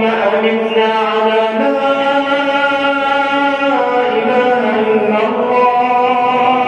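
A voice chanting an Arabic du'a (supplication) in a slow, drawn-out melody, holding long notes that step to a new pitch every second or two.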